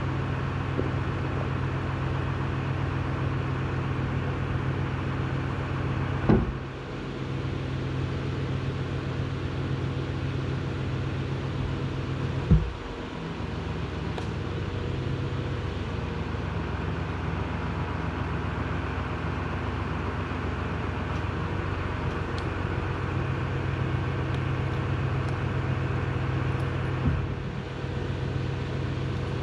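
A steady mechanical hum runs throughout. Three sharp knocks stand out, about 6, 12 and 27 seconds in.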